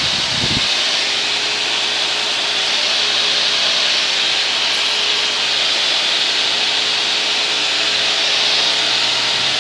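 Steady drone of a light aircraft's engine and propeller heard inside the cabin in flight: a strong even hiss with a few steady low engine tones beneath it.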